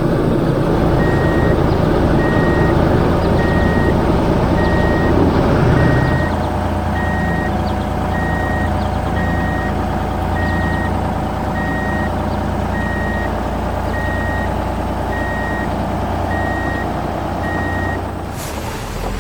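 A vehicle's reversing alarm beeping about once a second over a steady engine rumble, as a work vehicle backs up. The engine is louder for the first few seconds, and the beeping stops near the end.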